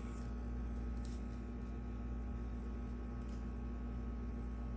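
Steady low hum with faint room noise, and a few faint soft handling sounds.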